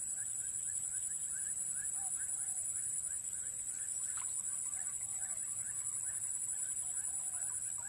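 Swamp ambience: a steady high-pitched insect drone with an even pulse, over a busy stream of short, repeated chirping animal calls.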